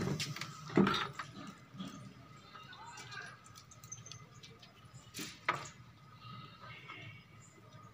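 Wires and small metal parts being handled inside an open amplifier chassis: a few sharp clicks and knocks, the loudest about a second in and again around five seconds in, with softer rustling between.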